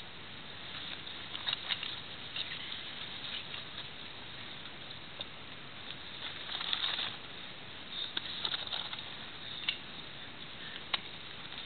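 Scattered scrapes, rustles and short clicks of a person in a harness scrambling against a tree trunk on a rope, shoes and hands on the bark. A longer cluster of scraping comes about two-thirds of the way in, and there is a steady hiss underneath.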